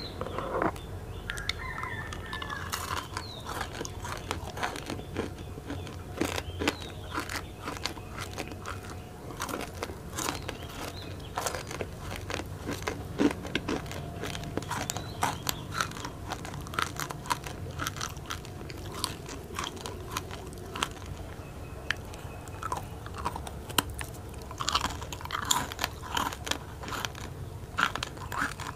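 Crunching and chewing of rainbow-sprinkle-coated biscuit sticks: a steady run of crisp, irregular bites and crackles, thickening near the end with a fresh round of bites.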